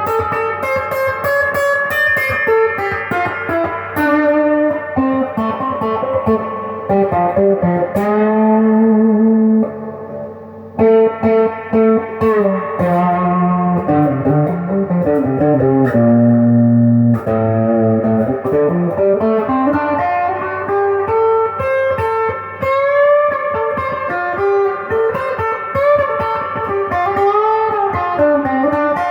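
Epiphone Les Paul Jr. electric guitar on its stock bridge humbucker, played through a Sweet Cream overdrive pedal stacked with a Crate amp's overdrive: distorted lead runs, with a couple of long held notes in the middle.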